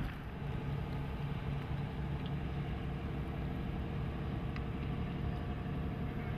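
Tugboat's engine running steadily at an even speed, a low constant hum.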